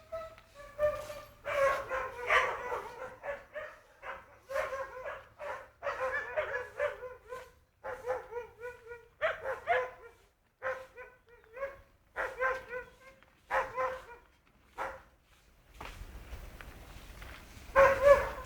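Dogs in a dog pound barking repeatedly, in short sharp barks with some higher yelps, several at once in places. A low rumble comes in near the end.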